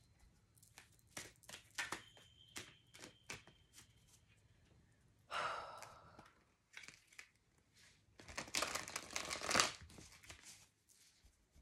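A deck of oracle cards handled and shuffled by hand: scattered light clicks and taps, then about eight seconds in a longer, denser rustling flutter of cards.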